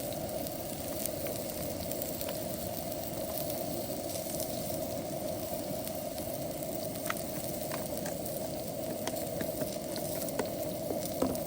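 Turkey sausage frying in a pan: a steady sizzle with scattered small crackles.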